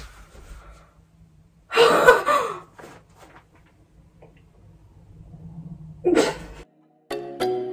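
A woman's short wordless vocal sound, a breathy exclamation, about two seconds in, and another brief one near six seconds. Soft background music with steady notes starts near the end.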